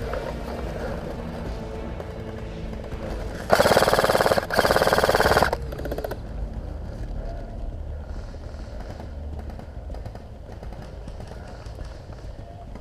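Airsoft rifle firing two full-auto bursts of about a second each, close by, starting about three and a half seconds in, with rapid, evenly spaced shots.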